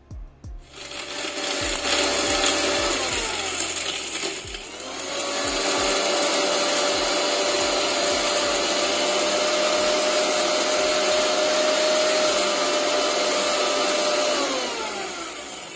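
Electric mixer grinder's motor grinding whole spices (cinnamon, dried ginger, cardamom, black pepper) to powder in its small steel jar. After a few light knocks, it runs in two goes: a short burst that winds down falling in pitch, then a longer steady run that winds down the same way near the end.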